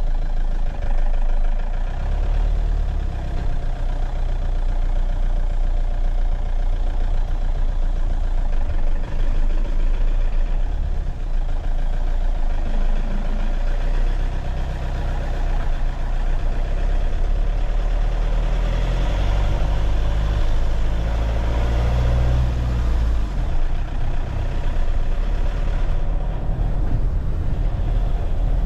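Motor vehicle running through town, a steady low engine and road rumble that grows stronger for a few seconds around twenty seconds in.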